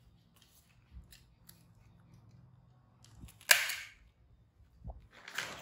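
A disposable diaper being fastened: a sharp rip as a tape tab is pulled free about halfway through, and a longer rustling rip near the end, over faint clicks of handling.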